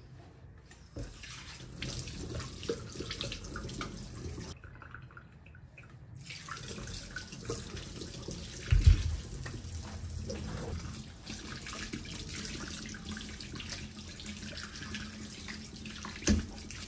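Kitchen tap running into a sink as food or utensils are rinsed, with two loud knocks, about nine seconds in and near the end.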